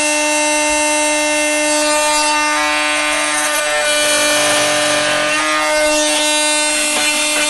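Handheld power tool running steadily with a buzzing whine as it trims the edge of a countertop panel around a galley sink cutout; a rougher rasping noise swells and eases in the middle as the tool bites into the panel.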